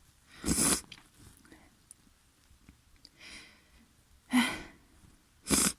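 A person sneezing with a snotty nose: three sharp, loud sneezes, one about half a second in and two close together near the end, with a softer breath between.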